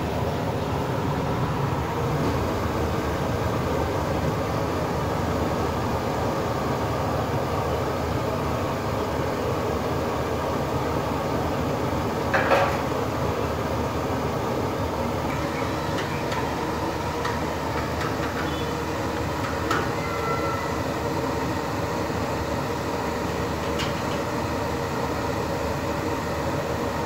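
A steady, even rumbling noise with faint steady tones in it, broken by a brief clatter about halfway through and a sharp click a few seconds later.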